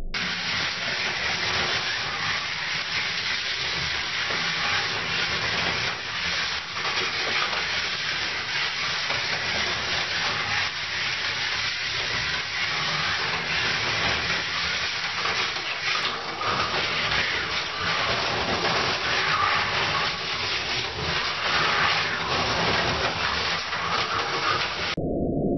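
Slot car running laps on plastic track: a steady whirring hiss from its small electric motor and wheels, with a fine rattle from the track.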